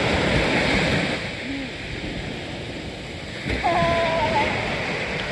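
Small waves breaking and washing up on a sandy shore, the surf louder at the start and again past halfway. A short, level, high-pitched voice call sounds a little under four seconds in.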